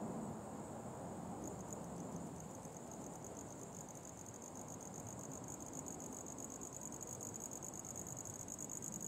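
An insect's high, fast-pulsing trill, like a cricket's, starts about a second and a half in and keeps going. Under it is a low, distant rumble that eases off.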